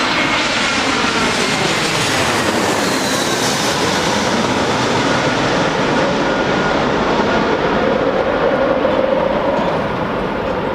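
Jet airliner's engines passing close by on landing, a loud rushing noise with whining tones that fall in pitch, the high hiss fading after about five seconds as it moves away.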